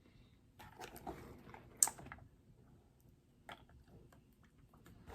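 Small clicks and rustles of makeup containers being handled, with one sharper click a little under two seconds in.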